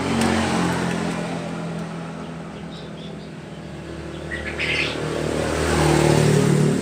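A motor vehicle engine passing by, swelling in loudness just after the start and again near the end, with a bird chirping briefly around the middle.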